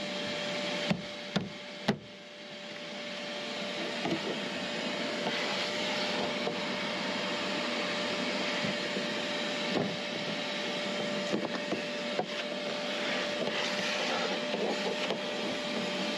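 Shop vacuum running steadily with a thin motor whine, its hose held to a hole drilled in the boat's fibreglass to suck out the debris. A few sharp knocks come about one to two seconds in.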